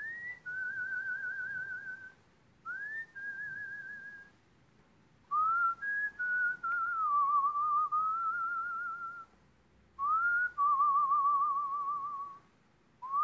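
A person whistling a slow melody in phrases with pauses between them. Each phrase slides up onto a note, and the held notes waver in a wide vibrato. One longer phrase in the middle steps down through several notes.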